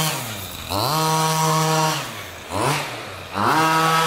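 The 30 cc two-stroke petrol engine of a 1:5-scale Amewi Pitbull RC buggy revving under throttle as it drives: it winds up to a steady high pitch for about a second, drops back, gives a short blip, then winds up again near the end.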